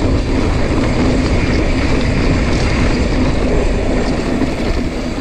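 Wind rushing over a GoPro microphone with mountain bike tyres rolling on loose, sandy dirt during a dirt-jump run: a loud, steady rush of noise.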